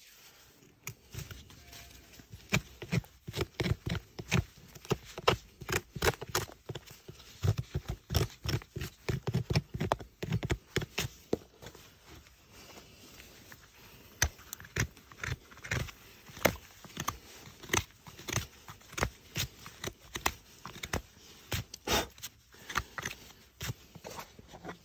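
Farrier's hoof knife paring a horse's hoof sole: a run of sharp scraping cuts, several a second, most closely packed and heaviest in the first half.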